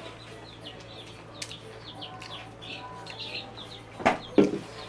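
Small birds chirping in the background, many short falling chirps. About four seconds in come two loud, short clatters as a tortilla chip is picked out of a metal tray of nacho dip.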